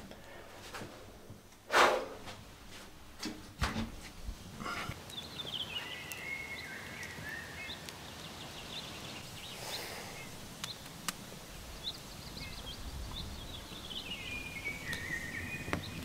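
Songbirds singing: a trilled song that falls in pitch about five seconds in and again near the end, with faint chirps between. Before it, a loud thump about two seconds in and a few lighter knocks.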